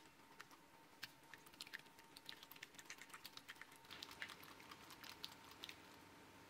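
Whisk beating egg yolks in a glass bowl: faint, quick, irregular clicks and taps of the wires against the glass, stopping near the end.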